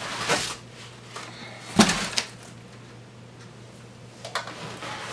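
Cardboard box and foam packing inserts being handled during unpacking: a brief rub of foam against cardboard, then a sharp knock a little under two seconds in with a smaller one just after, and a few light taps near the end.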